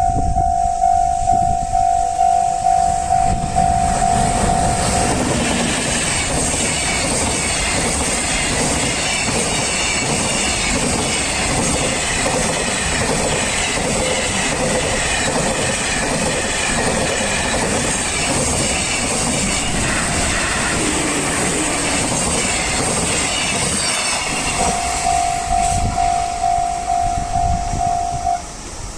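Japanese level-crossing warning bell dinging steadily, then a long freight train hauled by an EF210 electric locomotive passes, its wheels clattering over the rail joints for about twenty seconds and drowning out the bell. The bell is heard alone again near the end.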